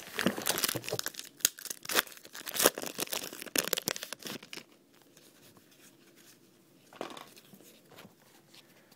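A Panini Rookies & Stars card pack wrapper being torn open and crinkled: a run of sharp crackles over the first four seconds or so, then mostly quiet apart from a soft rustle about seven seconds in.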